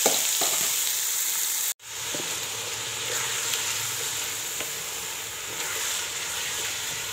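Diced tinda (apple gourd) sizzling in hot oil just after going into the pan, stirred with a spatula that adds a few light clicks and scrapes. The sizzle drops out for a moment a little under two seconds in, then carries on steadily.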